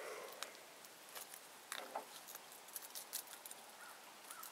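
Faint, scattered small clicks, taps and rustles from handling a freshly landed smallmouth bass.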